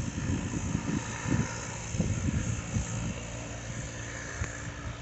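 Private jet's engines heard from the ground as it climbs away after takeoff: a steady distant rush that eases off near the end, with wind gusting on the microphone.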